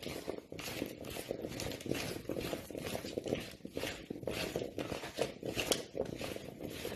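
Hands tossing seasoned, cut potatoes in a plastic bowl: a busy, irregular patter of soft clicks and squelches.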